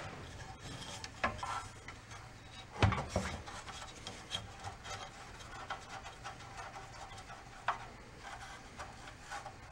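Screwdriver working at stubborn screws on an old outboard motor's carburetor: faint scraping and rubbing of metal on metal, with a few short clicks, the sharpest about three seconds in.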